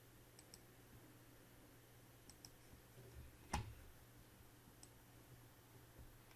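Faint computer mouse clicks, several in quick pairs, as pictures are paged through, with one louder thump about three and a half seconds in, over a low steady hum.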